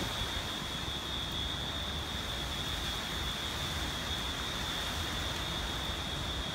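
Hurricane-force wind and rain, the wind buffeting the microphone in a low rumble, with a steady high whine over the hiss.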